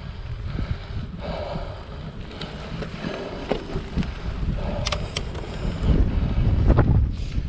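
Wind buffeting the microphone of a camera riding along on a bicycle, a steady low rumble that grows stronger near the end, with two sharp clicks about five seconds in.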